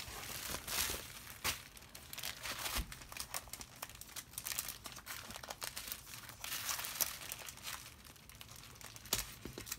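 Plastic bubble wrap and packaging crinkling and crackling in irregular bursts as it is handled and unwrapped.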